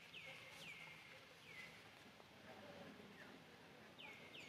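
Faint, high animal calls, each a short note sliding down in pitch, repeated about six times: three in the first second and a half, a fainter one past the middle, and two more near the end.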